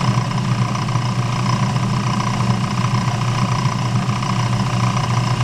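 Craftsman 109 bench lathe running at low speed with a steady hum, the tool taking a heavier cut from the spinning workpiece.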